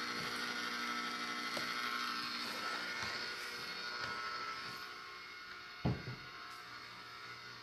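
Pampered Chef electric ice cream maker running, its motor turning the dasher through a custard-based ice cream mix with a steady hum; the hum grows quieter a little past halfway as the machine is moved lower. A single thump near the end.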